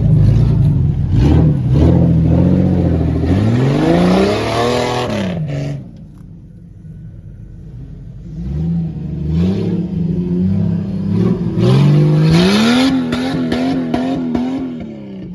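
A vehicle's engine revving hard as it drives through a creek crossing, its pitch climbing about four seconds in, easing into a quieter stretch, then climbing again from about twelve seconds and holding high and wavering before dropping near the end.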